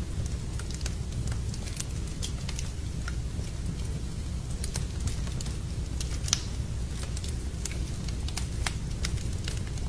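Wood fire crackling in a fireplace: irregular sharp pops and snaps, one louder snap a little past the middle, over a steady low rumble.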